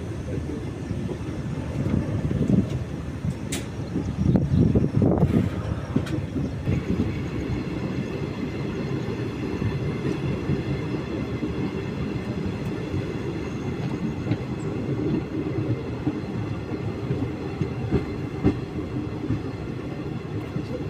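Passenger train of the Kochuveli–Yesvantpur Garib Rath Express running on the rails: a steady rumble of wheels and coaches, louder for a few seconds early on. About six seconds in, a faint steady high whine joins the rumble.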